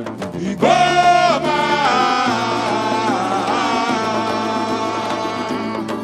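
Samba-school music over the parade sound system: a long held, slowly bending sung note comes in about half a second in, over a steady bass note, with the percussion in the background.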